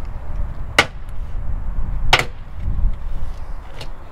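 Plastic clips of a Tesla Model 3 trunk-lid trim panel snapping loose as the panel is pulled off by hand: two sharp snaps about a second apart and a fainter one near the end, over a low rumble.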